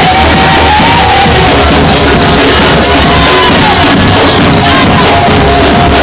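Loud worship music with a steady drum beat and long held sung notes.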